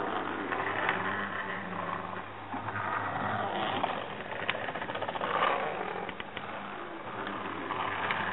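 Keith Newstead's Contraband Cat, a card automaton, running: its mechanism rattles and clicks as the boat and cat move, with a few sharper clicks. A steady low hum sits underneath.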